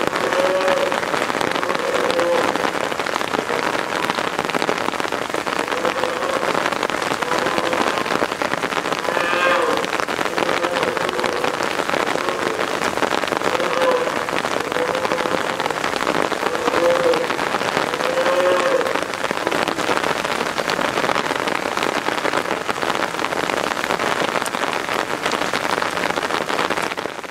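Steady heavy rain, with a polar bear cub's short calls repeating every second or two, mostly in the first two-thirds. The cub is calling to demand to nurse.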